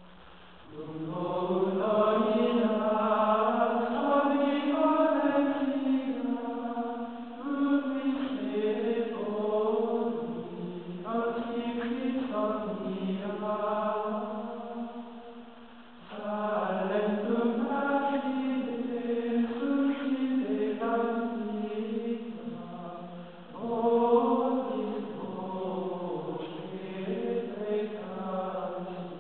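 Choir chanting in long sustained phrases over a steady low held note, pausing briefly about halfway through and again about three-quarters of the way.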